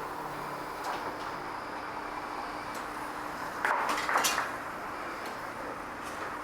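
Metal clatter and scraping from tyres being worked off wheel rims, with a few scattered knocks and a louder burst of clatter around four seconds in, over a steady faint hum.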